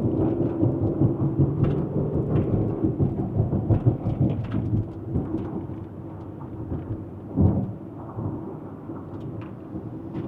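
Road and engine noise inside a moving car's cabin: a steady low rumble with light ticks and rattles, easing about halfway through, and a single thump about seven seconds in.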